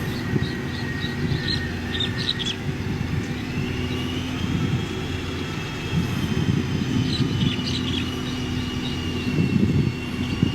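Heavy earthmoving machine's diesel engine running steadily, with a thin high whine that rises in pitch about three seconds in and then holds, and a few short high squeaks.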